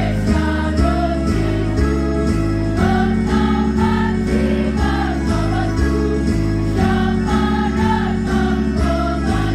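Women's choir singing a melody together over instrumental accompaniment with a bass line and a steady beat.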